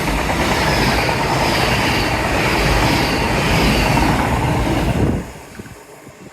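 A train passing close by at speed: a loud rush of wheel and rail noise that drops away sharply about five seconds in as the last carriage goes by.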